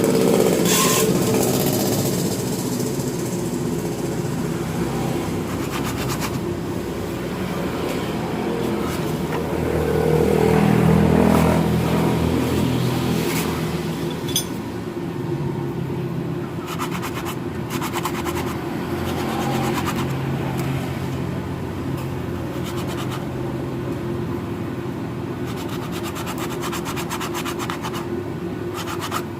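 A motor running steadily, growing louder for a couple of seconds near the middle, with a few sharp clicks.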